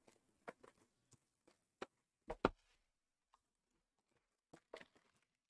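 A few light taps and knocks from a cardboard trading-card box being handled, the loudest pair about two and a half seconds in.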